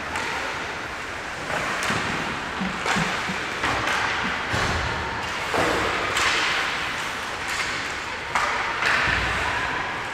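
Ice hockey play in an indoor rink: skates scraping the ice, with sharp knocks of sticks and the puck every second or two.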